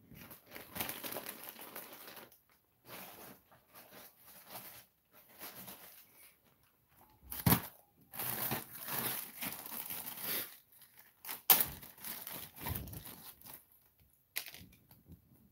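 Clear plastic bag rustling and crinkling in the hands in irregular bursts as a small plastic figure is taken out. Two sharp clicks, about halfway and three-quarters of the way through, are the loudest sounds.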